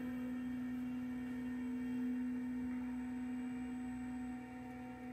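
Voron 2.4 3D printer's stepper motors whining at one steady pitch as the toolhead homes along the X axis at slow homing speed.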